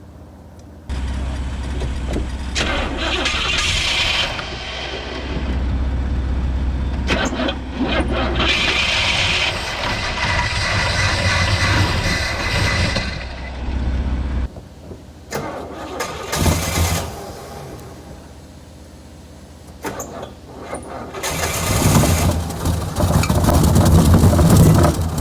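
A 1971 Buick GS V8 being cranked over on the starter and firing, but not settling into an idle: a long attempt of about 13 seconds, then a second attempt near the end. It turns over and wants to run, and the owner suspects an old MSD ignition box that is not firing at the right time.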